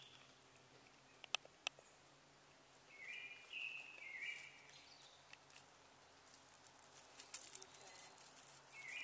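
Faint bird song: short whistled phrases that slide up and hold, repeated three times a few seconds in. Two sharp clicks come about a second in, and light crackling of wood-chip mulch follows as the dogs move and sniff.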